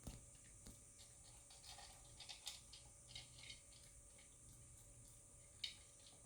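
Faint, irregular crunching and clicking of a dog chewing dry food, a few quick crunches clustered in the middle, over a quiet room hum.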